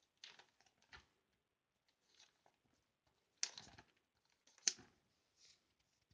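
Clear plastic sleeve pages of a trading-card binder rustling and crinkling as they are handled and turned, in several short bursts, the two loudest about three and a half and four and a half seconds in.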